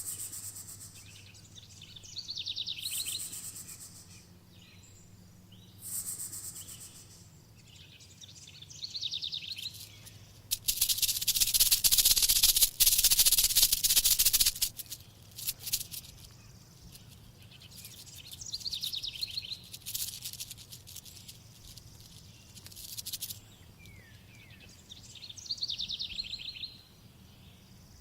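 A snake hissing in repeated bursts a few seconds long, the longest and loudest about halfway through, with bird-like chirps between the bursts.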